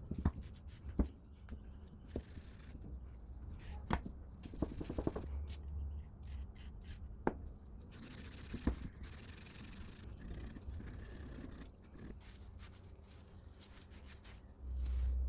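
Rusty lathe tool rest and tailstock parts being scrubbed by hand: irregular rubbing and scraping with scattered light knocks as the metal is handled. A low rumble comes in near the end.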